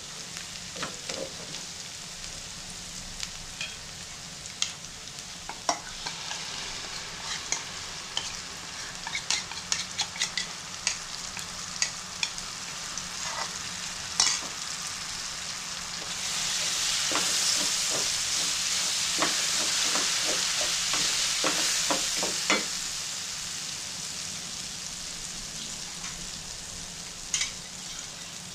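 Chopped onion sizzling in oil in a nonstick wok, stirred with a wooden spatula that clicks and scrapes against the pan. From about halfway through, the sizzle grows louder for several seconds as kurma spice paste goes into the hot oil, then settles back.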